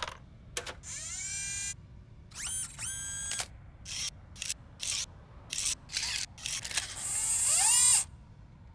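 Small electric motors whirring in a string of short stop-start runs, the pitch sliding as each one spins up or down, with a longer rising whir near the end.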